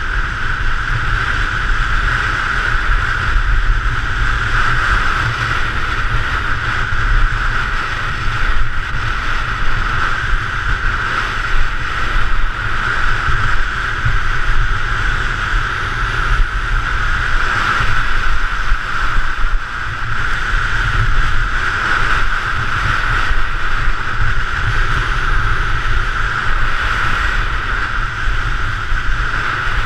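Steady rushing wind buffeting the microphone with low rumbling gusts, over a constant hiss of skis gliding and carving on hard-packed snow during a downhill ski run.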